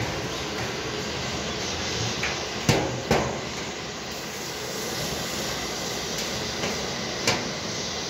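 Steady hiss of a lit gas brazing torch. Over it, hand tools knock sharply on the steel refrigerator tank and its copper tubing: twice close together about three seconds in, and once more about seven seconds in.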